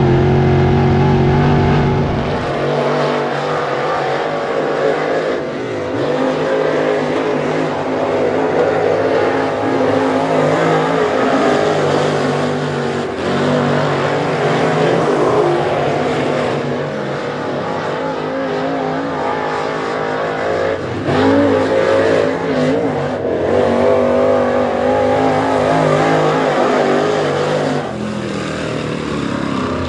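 Dirt late model race car's V8 engine at racing speed on lap, its note rising and falling through the corners. It is heard up close from inside the car for the first couple of seconds, then more thinly from the grandstand as the car circles the track.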